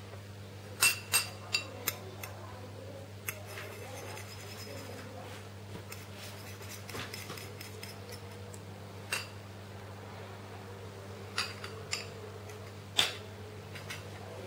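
Sharp clinks and taps of dishes and utensils, several in quick succession about a second in and more later, the loudest near the end, over a steady low electrical hum.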